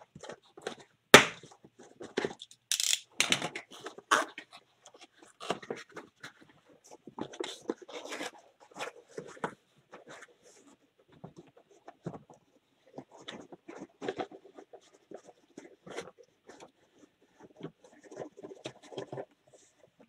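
Cardboard shipping case being handled and opened by hand: flaps folded back and the inner boxes slid out, with irregular scraping, tearing and rustling of cardboard and short knocks. A sharp knock about a second in is the loudest.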